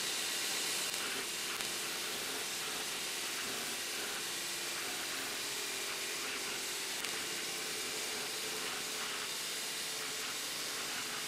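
Belt grinder running with a steel billet pressed against the belt at the contact wheel, grinding grooves into it: a steady hiss of abrasive on steel.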